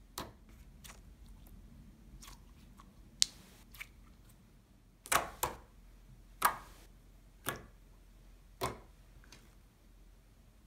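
Hands playing with a glittery slime, making scattered sharp clicks and bubble pops, a few of them louder, around the middle.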